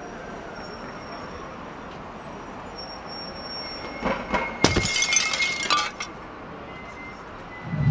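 A glass beer mug hits the ground and shatters about four and a half seconds in, with a sharp crash followed by about a second of tinkling shards, after a couple of small knocks. A faint steady background hiss runs beneath.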